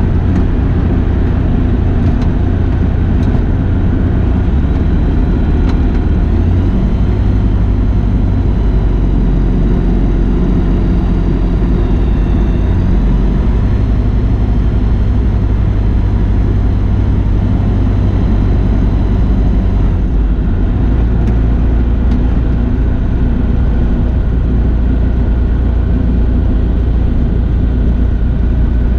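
Light aircraft's piston engine and propeller droning steadily, its low pitch shifting slightly a few times.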